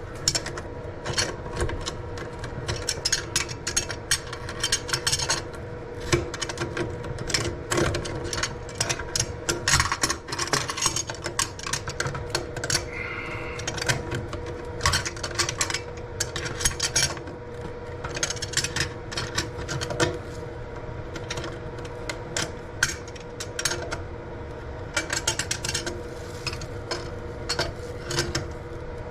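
Toilet floor bolts being tightened down with a wrench: rapid runs of clicking and scraping strokes with short pauses between, as the loose toilet is drawn tight to the floor.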